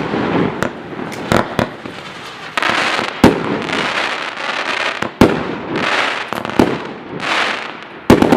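МБК 531 fireworks going off: a string of sharp bangs with longer hissing, crackling bursts between them.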